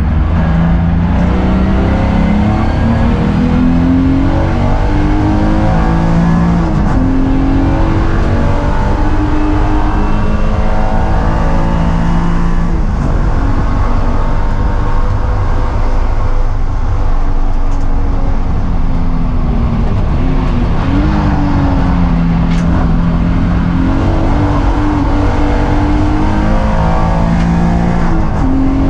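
BMW E36 M3's straight-six engine heard from inside the cabin, accelerating hard through the gears, its pitch climbing and dropping back at each upshift. It then eases off and is shifted down for a corner before pulling again near the end.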